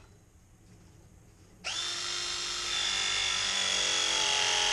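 Ridgid ProPress tool pressing a 1/2-inch copper fitting: its motor starts about one and a half seconds in and runs steadily through the press cycle, the whine dropping slightly in pitch as the jaws close.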